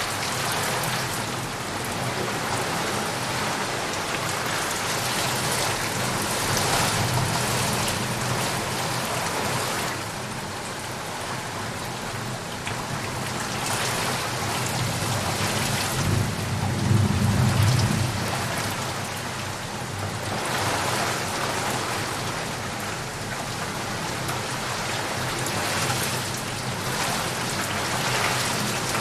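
Heavy rain falling steadily on leaves and puddles, a dense hiss that swells and eases. A low rumble of thunder rolls in a little past the middle.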